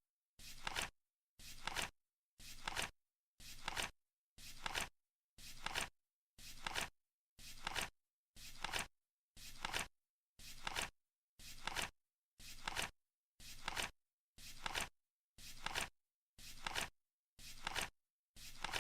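Flip clock's seconds card flipping over once a second, each flip a short rustle ending in a sharp snap, with silence between.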